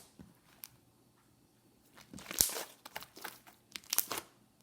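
Homemade bubble slime being poked and squished in the hand, giving a run of sharp clicks and small pops as air pockets burst, most of them between about two and four seconds in.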